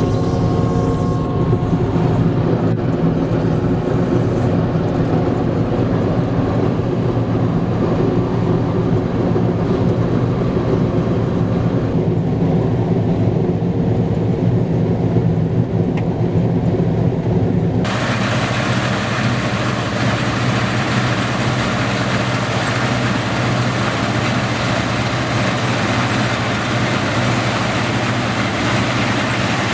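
Deutz-Fahr TopLiner 8 XL combine harvester running steadily while cutting wheat, with a continuous diesel engine drone. About two-thirds of the way through, the sound changes abruptly to a broader, hissier rush of the working machine.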